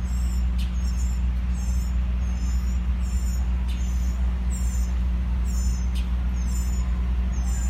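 A small bird calling over and over with short, high chirps, about one every half to one second, over a steady low engine hum.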